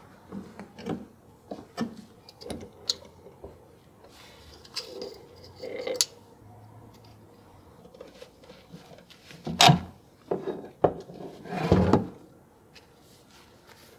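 Scattered clicks and knocks of metal tools and parts handled on a wooden workbench while a gear puller and a socket are fitted to a rusty electric-motor armature shaft to remove its bearing. There is one sharp, louder knock about ten seconds in and a longer clatter about two seconds later.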